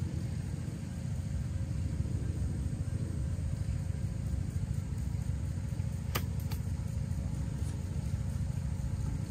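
Steady low rumble of wind buffeting the microphone, with a sharp click about six seconds in and a fainter one just after.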